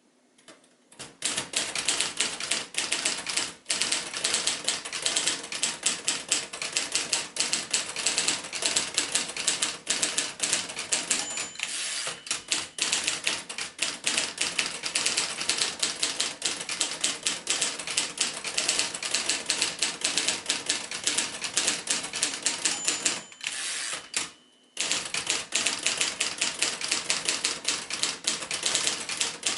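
1941 Royal Arrow manual portable typewriter being typed on, with rapid, steady keystrokes. A short high ring sounds twice, each followed by a brief pause in the typing.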